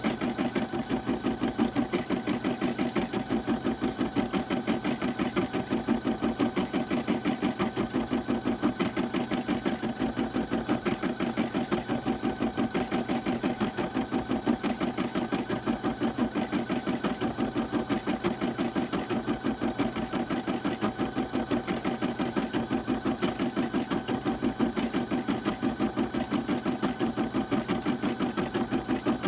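Brother embroidery machine stitching out a design, its needle running in a fast, even rhythm.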